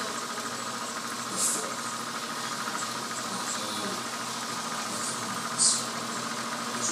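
Tabletop mist-vortex device running: a steady whir, with short spattering hisses of water about a second and a half in and again near the end.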